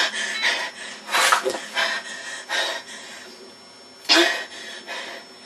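A boy's breathing and huffing: several short, noisy breaths between quieter stretches, the loudest about a second in and again about four seconds in.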